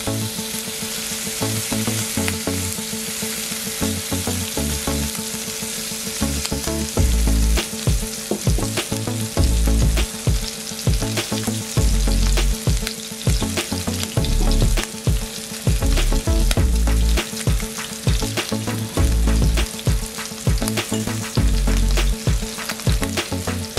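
Rib eye steak sizzling in oil and melting butter in a nonstick frying pan, a steady hiss with frequent sharp pops and crackles. Low bass pulses come in beneath it from about seven seconds in.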